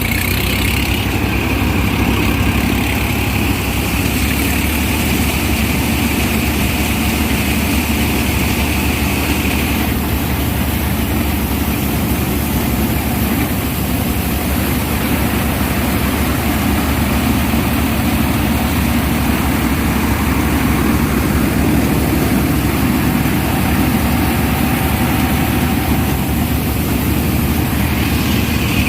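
Tractor-mounted Gill combine harvester running steadily as it moves forward harvesting wheat: the tractor's diesel engine and the threshing machinery make a continuous drone. A higher whine over it fades about ten seconds in.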